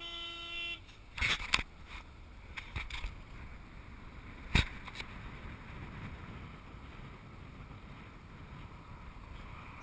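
A car horn sounds briefly at the very start, followed by a few sharp knocks and one louder bang about four and a half seconds in, over the steady rumble of a moving car with wind on the microphone.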